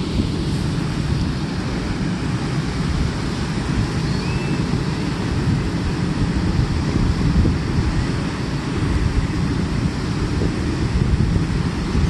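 Wind buffeting a phone's microphone over the steady wash of surf breaking on a sandy beach, a constant loud rumble.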